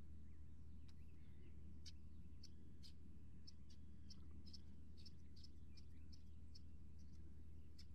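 Small bird chirping: short, high chirps repeating irregularly, roughly two a second, over a steady low hum.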